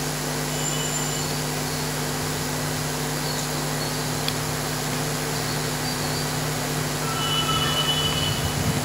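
Steady electrical hum with an even hiss from an open microphone and sound system, with a few faint brief high tones near the end.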